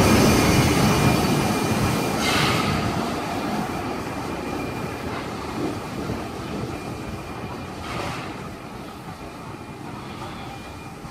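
Steam locomotive 3016 and its train rolling past along the platform and drawing away, the rumble of the wheels fading steadily. Two short hisses stand out, a couple of seconds in and again about eight seconds in.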